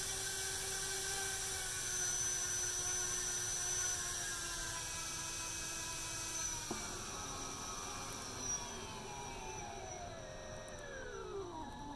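Small brushless drone motor spinning a propeller: a steady whine that drops in pitch about two-thirds through, then falls away steadily as the motor winds down near the end.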